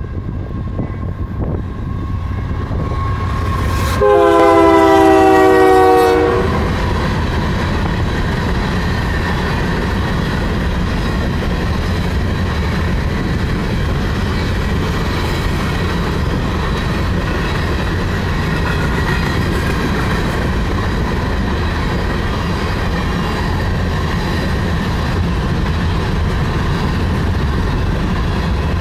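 A Union Pacific coal train passing at close range, led by GE diesel locomotives. About four seconds in, the lead locomotive gives one loud horn blast of several notes sounding together, lasting about two seconds, with its pitch sagging slightly toward the end. After that come the steady rumble and clickety-clack of the coal cars' wheels rolling by.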